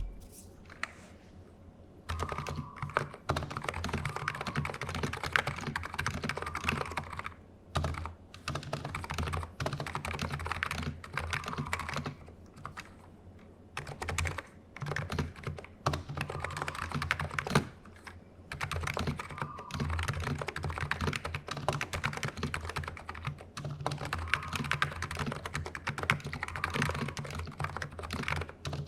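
Typing on a NiZ X87EC(S) tenkeyless keyboard with electrostatic capacitive switches, which use a spring over a rubber dome: rapid key presses in runs of several seconds, broken by a few short pauses.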